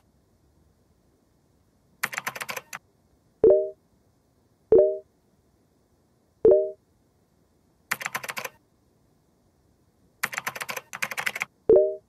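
Computer keyboard typing in three short bursts of rapid clicks, between four brief low chat-message notification chimes as messages arrive and are sent.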